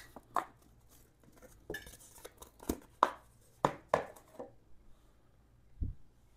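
Handling noises as a piece of cardboard is pulled out from under a motorcycle's final drive and set down on a plastic drain pan: a string of light clicks and knocks, then a single low thump near the end.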